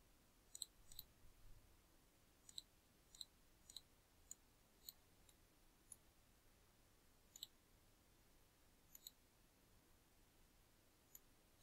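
Faint computer mouse clicks, about a dozen scattered irregularly over near silence.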